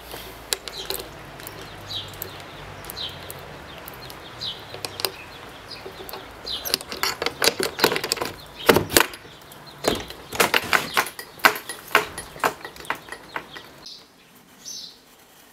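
Padlock and sliding bolt latch on a metal garage door being unlocked by hand: a run of sharp metallic clicks, rattles and clanks from about six seconds in, stopping near the end. Before that, a bird chirps briefly about once a second.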